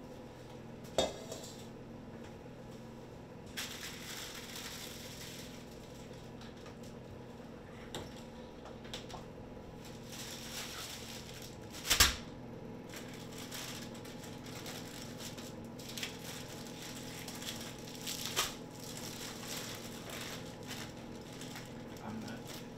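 Paper and plastic food wrapping rustled and crinkled open on a kitchen counter, with a sharp knock about a second in and one loud knock about halfway through, over a steady low hum.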